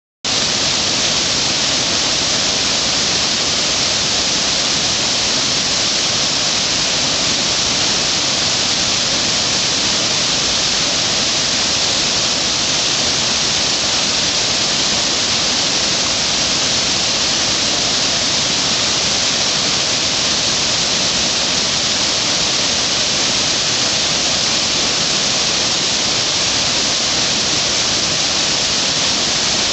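Whitewater of a river wave rushing steadily, a loud even hiss that does not change.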